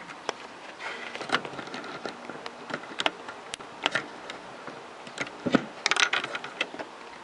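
Irregular clicks, taps and short scrapes from hands working the tonearm and mechanism of a TEAC CF-330 turntable, over a steady faint hiss.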